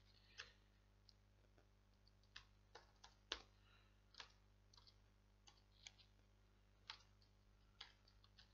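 Near silence broken by about ten faint, scattered clicks of a computer mouse and keyboard, the loudest a little past three seconds in.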